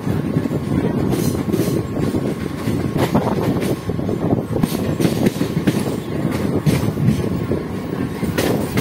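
A passenger train running on the rails, heard from aboard the moving train: a steady rumble with irregular clicks and knocks as the wheels cross rail joints.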